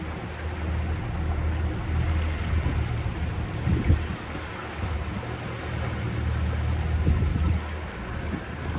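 A boat motor running steadily at low speed, with wind gusting on the microphone.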